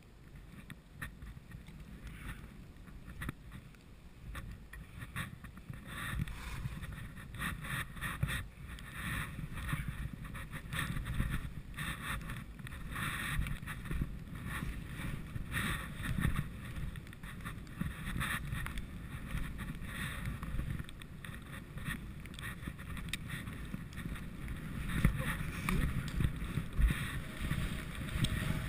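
Wind buffeting the microphone during a fast ski descent, with the scraping hiss of skis cutting through snow; both get louder about six seconds in.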